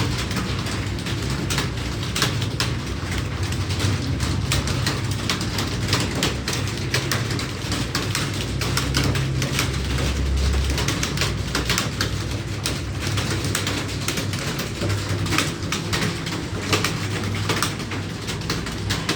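Computer keyboards clattering, with many keys struck quickly and irregularly as several people type at once, over a steady low hum.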